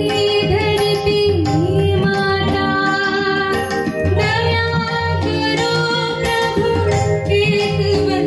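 A young woman sings an Indian devotional song into a microphone, with sliding, ornamented held notes over steady organ chords and tabla strokes.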